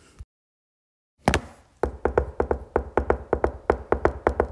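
Short percussive music sting: after about a second of silence, a single sharp hit, then a steady beat of sharp knocking strikes with a low thump under each, about four a second.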